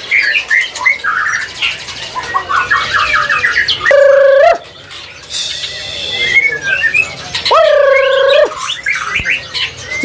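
A mix of many caged birds calling: short chirps and quick trills, broken by two loud, harsh squawks, one about four seconds in and a longer one about seven and a half seconds in.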